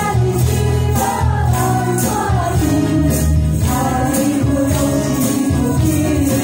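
Women singing a Mandarin pop song into microphones over an amplified backing track, with a steady beat and tambourine-like percussion.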